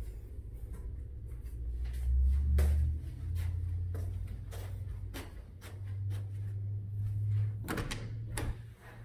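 An interior door being opened by hand: a brass knob is turned and the latch clicks a couple of times near the end. Scattered light knocks and a low rumble run under it.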